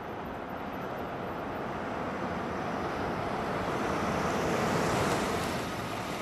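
Cars driving in and pulling up: a steady rush of engine and tyre noise that swells, is loudest about five seconds in, then eases a little.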